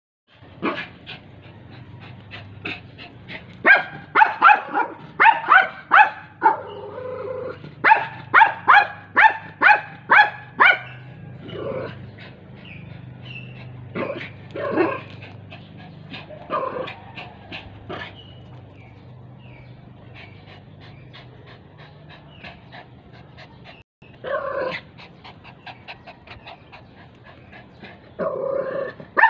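Small dog barking: two long runs of rapid, sharp barks, several a second, in the first third, then scattered single barks with pauses, and a louder cluster of barks near the end.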